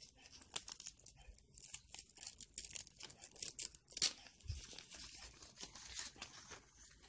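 Pink paper being torn open along a strip by hand: a run of short rips and paper rustling, the loudest about four seconds in.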